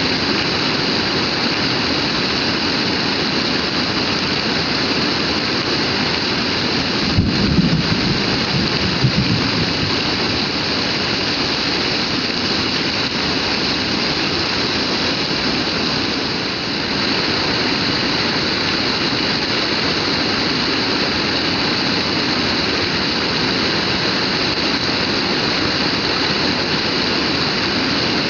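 Heavy rain pouring down steadily, a dense, even hiss. About seven seconds in, a brief low rumble swells and fades within a couple of seconds.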